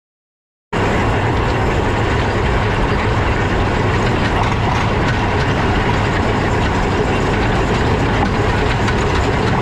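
Heavy farm machinery running steadily: a deep engine hum under a dense mechanical clatter. It cuts in abruptly from silence less than a second in.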